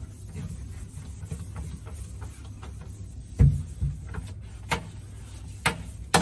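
A rag being wiped around the inside of a stainless steel sink, with a low steady rumble and a few sharp knocks, the loudest a thump about three and a half seconds in.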